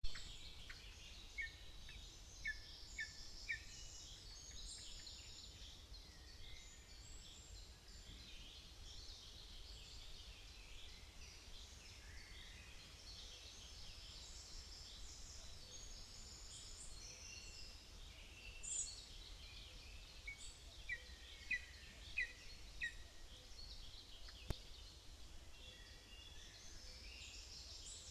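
Faint chorus of several wild songbirds singing at once, with runs of four or five short chirps near the start and again about three quarters of the way through, over a steady low hum.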